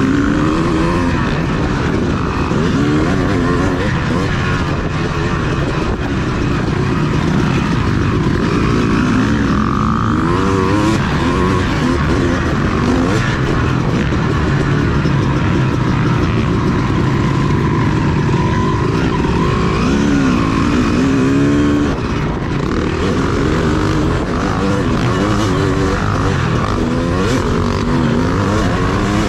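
Motocross dirt bike engine running hard without a break, revving up and down, its pitch rising and falling several times.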